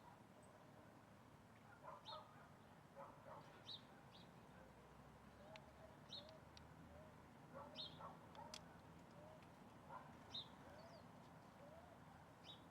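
Faint bird calls: short high chirps every second or so, mixed with lower short calls, some rising slightly in pitch.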